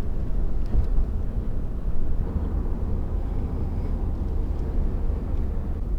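Steady low rumble of a vehicle being driven: engine and road noise, with no marked change in pitch or speed.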